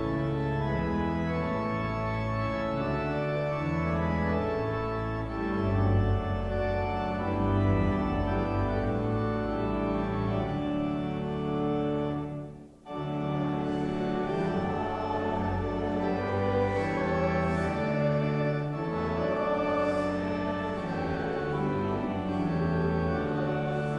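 Church organ playing sustained, slowly changing chords as a closing voluntary. The sound drops out for an instant about halfway through, then the organ carries on.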